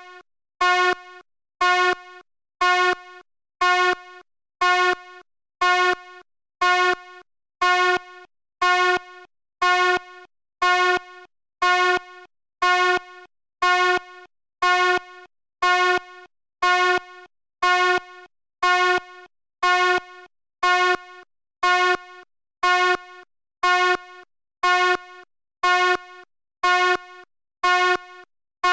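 Fire alarm horn sounding short blasts in a steady, even pulse, about one a second.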